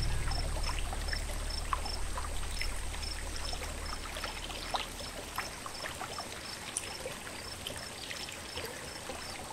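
Running stream water trickling and splashing, with many small irregular splashes, while the low tones of background music fade out over the first five seconds. A faint high chirp repeats about three times a second throughout.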